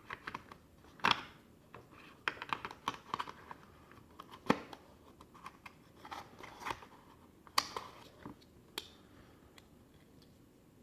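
Phone accessories being unpacked by hand: scattered clicks, taps and short rustles of plastic wrapping and cardboard as a charger and cable come out of the box, dying away near the end.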